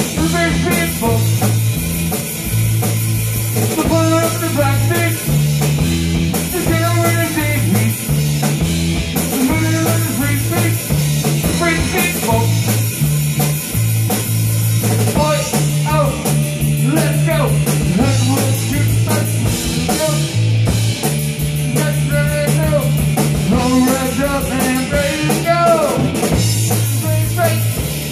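Live rock band jamming: electric guitar and drum kit playing together, with a low line stepping from note to note beneath them.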